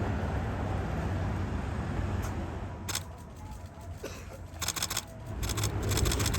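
A steady low rumble of street traffic. From about halfway there are several quick bursts of camera shutter clicks, like a DSLR firing in continuous mode.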